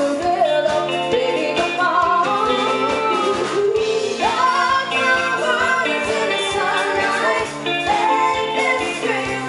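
Pop song: a lead vocal sung over band accompaniment with a steady beat.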